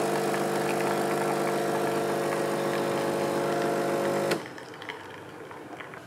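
De'Longhi ECP-series espresso machine's vibratory pump buzzing steadily while pulling an espresso shot, then stopping abruptly with a click about four seconds in.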